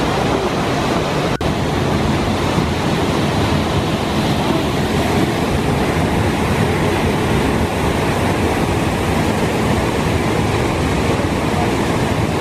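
Steady rush of water from a waterfall and the fast-flowing mountain creek below it, with a brief break about a second and a half in.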